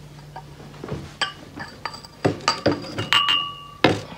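Two stemmed wine glasses clinking together and being set down on a table: a run of sharp clinks and knocks, one of which rings on briefly a little after three seconds in.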